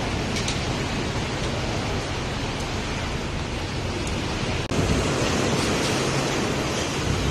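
Steady rush of sea and wind heard from a ship under way, with a low hum beneath it. About two-thirds of the way through it cuts suddenly to a louder rush of wind and waves breaking along the hull.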